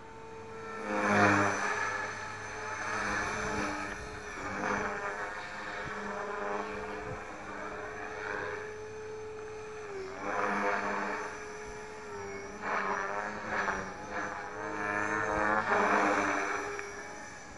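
T-Rex 450 Pro electric RC helicopter flying: a steady whine from its motor and gears with rotor blade noise that swells and fades several times as it manoeuvres, loudest about a second in and again near the end. The whine's pitch dips briefly about ten seconds in.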